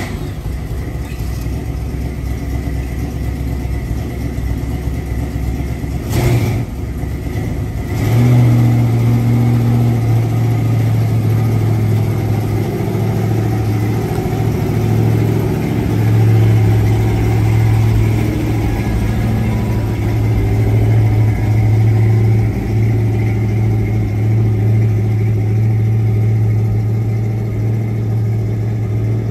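1968 Dodge D100 pickup's engine running with a steady low drone, which gets louder about eight seconds in and stays there. A brief rush of noise comes about six seconds in.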